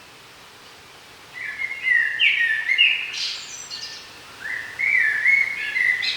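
A songbird singing two fast phrases of quick, stepped and sliding notes, the first starting about a second in and the second following shortly after, over a steady background hiss.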